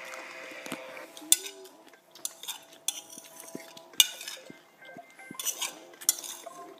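Light clattering of small hard objects, with four louder sharp clicks spread through it.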